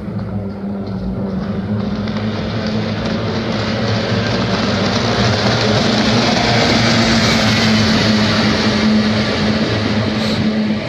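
A pack of kyotei racing boats' two-stroke outboard motors running flat out, a steady high drone that grows louder as the boats sweep through the turn, then eases slightly as they draw away near the end.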